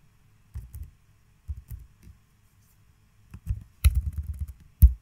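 Computer keyboard being typed on: a few scattered taps, then a quicker run of keystrokes in the last couple of seconds with two sharper, louder clicks.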